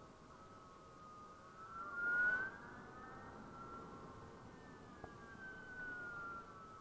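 Zero SR electric motorcycle's drive whining as it rides. The whine rises in pitch with speed to a peak about two seconds in, along with a short rush of wind noise, then slowly falls as the bike slows into the next bend.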